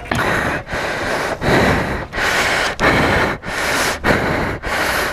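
A man panting hard: quick, rough breaths in and out, about eight in five seconds. He is winded from pushing a heavy motorcycle by hand.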